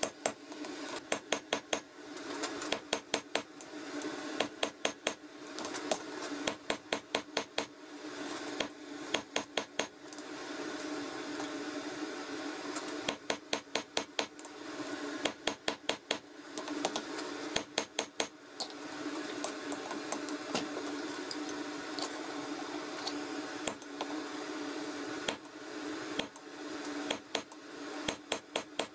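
Hammer blows ringing on a handled top tool held on red-hot wrought iron on the anvil, in quick runs of about four to eight strikes with short pauses between, over a steady hum.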